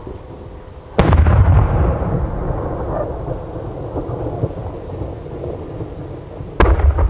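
Aerial firework shells bursting: a sharp boom about a second in, then a long low rumble of echoes rolling away, and another boom followed by a smaller crack near the end.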